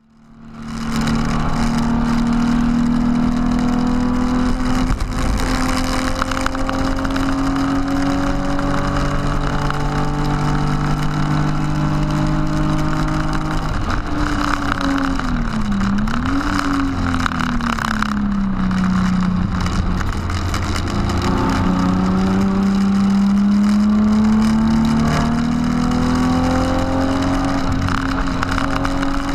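BMW E36 328i's 2.8-litre straight-six engine heard inside the cabin under hard throttle on track, with wind and road noise. Its note climbs slowly as the car gathers speed, falls away as the car slows from about 190 km/h with a quick dip and jump in pitch near the middle, then climbs again.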